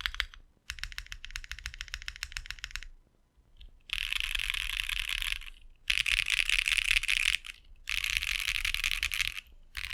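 Typing on a Bakeneko 60 custom mechanical keyboard with lubed and filmed AEBoards Snag switches on a POM plate: a quick run of key clicks, then, from about four seconds in, denser continuous key clatter in bursts of about a second and a half with short pauses between them.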